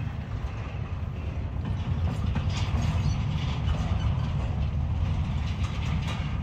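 Freight train rolling past: a steady low rumble of wheels on rail, with sharp clicks and rattles coming in from about two seconds in.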